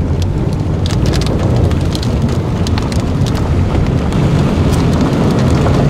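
Storm wind blowing across the microphone: a loud, steady low rumble with a few light ticks scattered through it.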